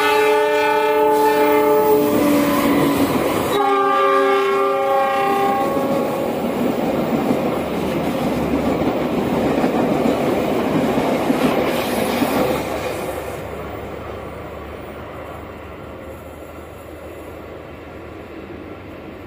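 CC206 diesel locomotive's horn sounding a long blast that slides down in pitch as the locomotive passes, then a second, lower blast about three and a half seconds in. Then the rumble and clickety-clack of the passenger coaches rolling past on the rails, fading away from about twelve seconds in.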